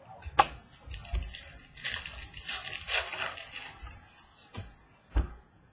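Foil wrapper of a trading-card pack being torn open and crinkled by hand, in irregular crackling bursts, with a sharp tap about half a second in and another near the end.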